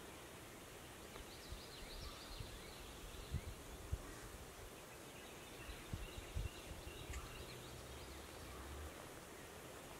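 Quiet woodland ambience with faint bird calls and a few soft low thumps.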